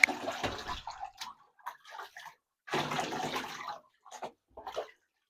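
Water splashing and pouring in a bathtub as a Labrador puppy is washed: a spell of about a second and a half at the start, another of about a second near the middle, then two short splashes.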